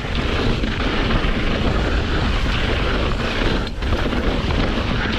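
Wind buffeting the bike-mounted or helmet camera's microphone, with mountain-bike tyres rumbling and the bike rattling over a rocky dirt trail during a fast downhill descent.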